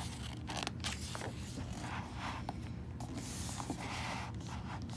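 A picture book's paper page being turned, rustling and sliding in several soft swishes.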